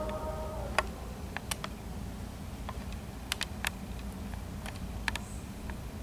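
About a dozen sharp clicks at irregular intervals over a low steady hum, with the tail of background music ending in the first second.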